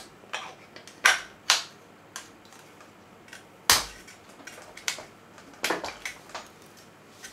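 A 3D-printed plastic quick release plate being pushed and clicked into the clamp of a Sony VCT-R620 tripod head: a string of sharp, irregular plastic clicks and knocks, the loudest a snap with a thump a little under four seconds in.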